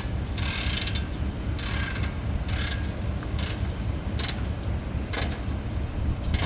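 GE B23-7 diesel-electric locomotive's engine running low as it creeps forward. Over it, a short high-pitched metallic sound repeats about once a second.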